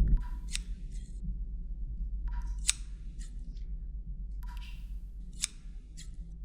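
Sharp mechanical clicks like snipping, in small groups of two or three that repeat about every two seconds. Each group starts with a brief tone.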